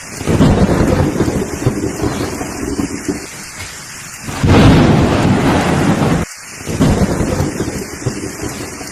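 Thunderstorm: steady rain with rolling thunder, one roll at the start, the loudest about halfway through, and another after a sudden brief drop about three-quarters of the way in.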